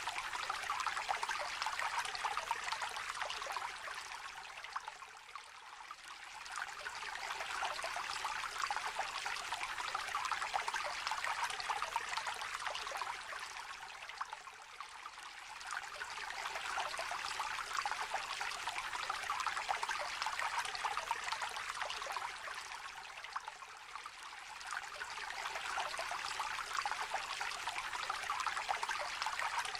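Shallow river trickling and babbling over stones, a steady splashing rush that eases off for a moment about every nine seconds.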